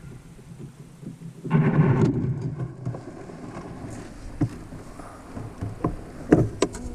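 A canoe landing: a rough scraping rush about a second and a half in, lasting about a second and a half, as the hull runs onto the shore, then a few sharp knocks.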